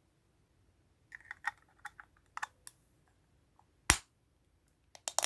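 Small plastic clicks and taps from handling a toy and its packaging during an unboxing, with one sharper knock about four seconds in and a quick run of clicks near the end.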